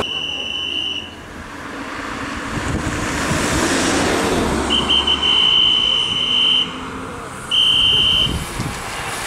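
Three high, steady whistle blasts, the middle one the longest, over the noise of a car passing close by, which swells and fades.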